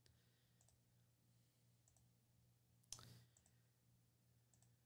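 Near silence with faint, scattered computer mouse clicks over a faint steady low hum. One slightly louder short click comes about three seconds in.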